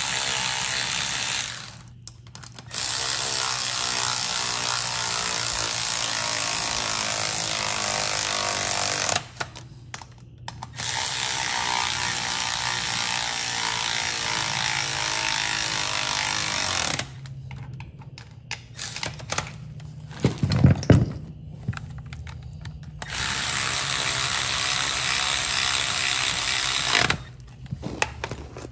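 Power ratchet running on the bolts of an airless paint sprayer's pinion housing, in four long runs of several seconds each with short pauses. In a quieter stretch in the middle come scattered clicks and one loud knock.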